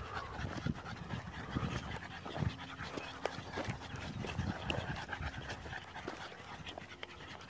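A dog panting, with footsteps on a gravelly dirt track, growing gradually fainter.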